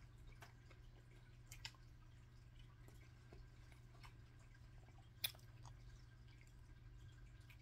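Near silence: a steady low hum under a few faint clicks and smacks of quiet eating, the sharpest about five seconds in.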